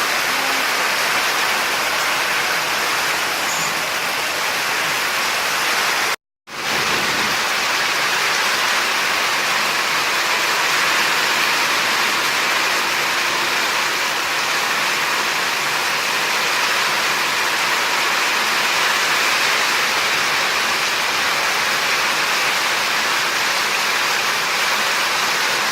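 Heavy rain downpour: a loud, steady hiss of falling rain, broken once by a split-second dropout about six seconds in.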